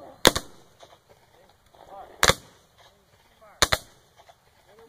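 Black-powder muskets firing blank charges down an infantry line: three sharp, uneven reports, each two shots close together, a fraction of a second in, just over two seconds in, and near the end.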